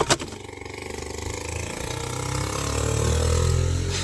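Two sharp clicks, then a motor vehicle engine running with a rapid even pulse, growing steadily louder over a few seconds.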